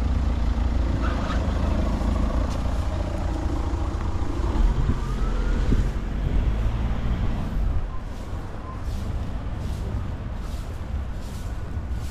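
A car driving slowly over a cobblestone street, a low rumble that eases after about six seconds. Then a broom sweeping the pavement in regular strokes, a short swish roughly every half to three-quarters of a second, growing clearer near the end.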